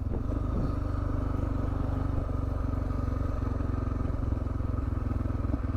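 Suzuki DR650's single-cylinder engine running at a steady, unchanging pitch, its fast, even pulsing thump carrying on without revving up or down.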